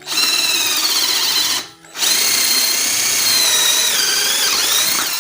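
GAOCHENG GC-CL12V 12-volt cordless drill running with a 12 mm bit, drilling a hole. The motor whines steadily, stops for a moment about a second and a half in, then starts again, and its pitch dips briefly near the end.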